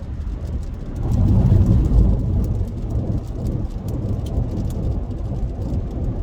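Road and engine rumble inside a moving car, swelling louder for about a second and a half a second in, with light ticks of rain on the car.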